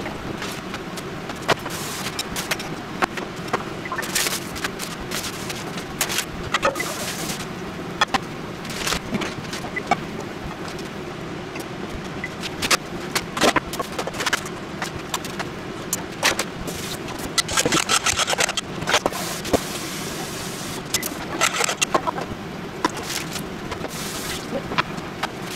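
Kitchen prep clatter: stainless steel bowls, utensils and packages knocked and set down on a wooden counter, with scattered sharp clicks. About two-thirds through comes a quick run of clicks, chopsticks beating eggs against a steel bowl, over a steady low hum.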